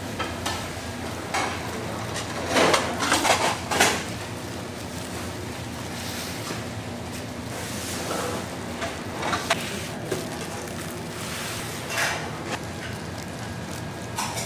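Kitchen work sounds: utensils and dishes knocking and clattering in a few short bursts, the busiest about two to four seconds in, over a steady low hum.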